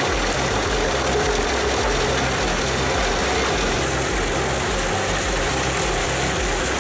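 Large engine-driven wood chipper running steadily, a continuous loud mechanical rumble with grinding noise over it.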